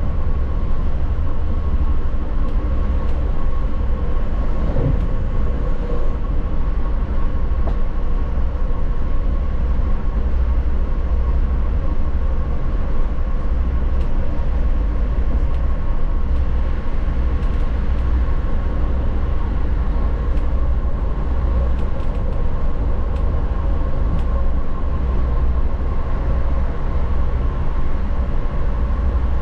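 FlixTrain passenger train running steadily, a continuous low rumble with a steady hum above it; a short sliding tone about five seconds in.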